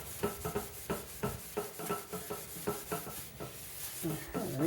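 A hand-held abrasive scrubbing pad with compound is rubbed back and forth over a yellowed plastic car headlight lens in quick, regular strokes, about three or four a second. It is the scrubbing stage of a two-step headlight restoration, wearing off the oxidised yellow surface.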